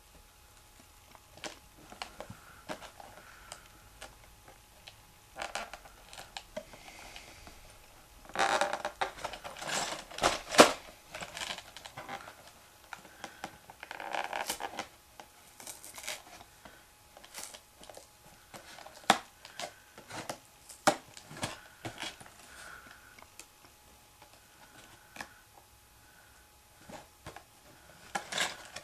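Hands handling a cardboard LEGO set box: scattered clicks and taps of fingers on the card, with longer rubbing, rustling scrapes about eight to eleven seconds in and again around fourteen seconds.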